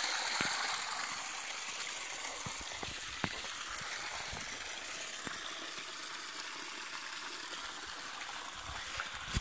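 Steady rushing water, like a stream or small waterfall, with a few faint clicks.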